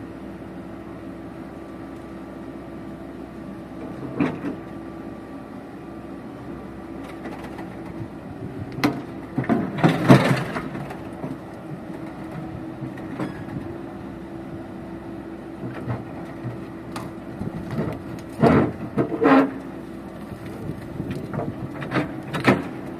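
Excavator diesel engine running steadily while the machine breaks a concrete ground pile, with several sudden loud knocks and cracks, the loudest cluster about halfway through and two more strong ones near the end.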